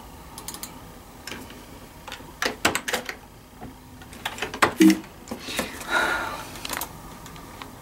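Computer keyboard keys and mouse buttons clicking in irregular clusters, the loudest clicks a little under five seconds in.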